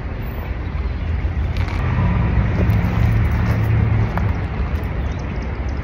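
Road traffic with a car engine running close by, its low rumble growing louder from about two seconds in and easing off after about four seconds.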